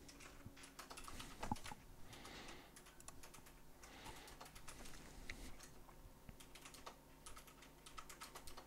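Faint typing on a computer keyboard: irregular clicks of keys being struck.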